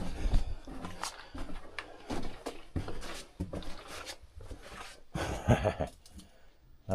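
Irregular scuffing, scraping and knocking of people moving over rock and loose gravel in a tight, echoing mine tunnel, with a brief voice sound a little past five seconds in.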